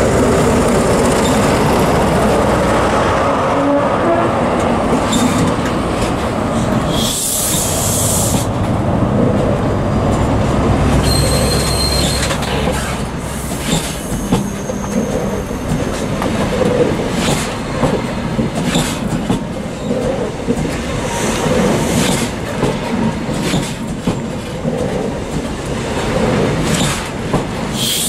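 High Speed Train (InterCity 125) passing close: the diesel power car's engine drones loudly for the first seven seconds or so. Then the Mark 3 coaches roll by with a regular clickety-clack of wheels over the rail joints and a brief high wheel squeal about halfway through.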